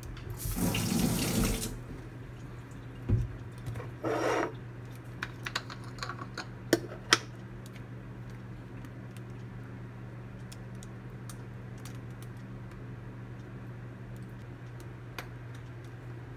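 Water running briefly from a tap for about a second, then a knock, a shorter hiss and a few sharp clicks of kitchen handling, over a steady low hum.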